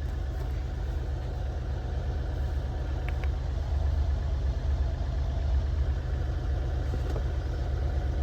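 Mahindra Bolero BS6's three-cylinder diesel engine idling steadily, with one faint tick about three seconds in.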